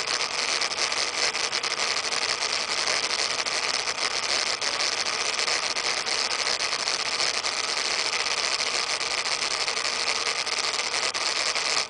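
Steady, even hiss of storm wind and rain from Hurricane Sandy, with no pauses or gusts.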